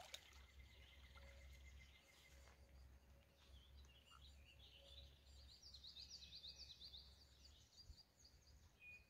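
Faint bird song over near silence: a run of quick, high chirping notes, densest a little past the middle.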